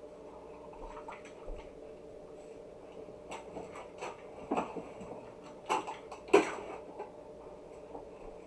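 A few short knocks and clatters of kitchen things being handled, the loudest about six seconds in, over a steady hum.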